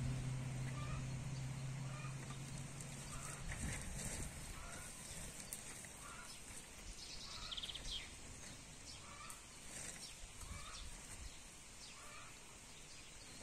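A short-handled hoe chopping into loose garden soil in irregular strokes, with chickens clucking and birds calling in the background. A steady low hum stops about three seconds in.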